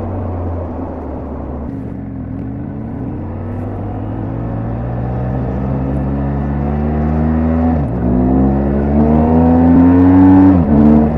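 BMW R1250GS Adventure's boxer-twin engine pulling hard under acceleration: its pitch climbs steadily and drops sharply twice as it is shifted up a gear, once about two thirds of the way through and again just before the end.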